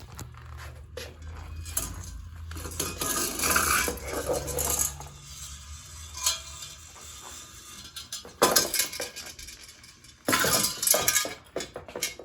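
A battered Hampton Bay Littleton ceiling fan, still powered, rattling and clanking metal on metal in several loud bouts, with a low motor hum in the first half that fades out.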